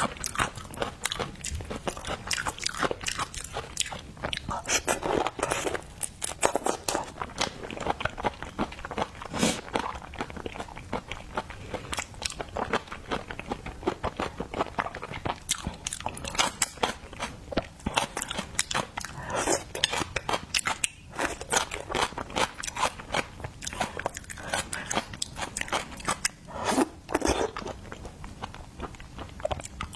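Close-miked eating: steady crunching bites and chewing, with many quick, sharp crackles throughout.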